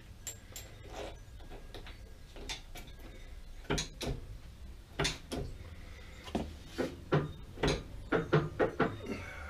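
Irregular metallic knocks and clunks as parts of a lathe clutch assembly are handled and tapped into place. They are sparse at first and come faster and louder in the last three seconds.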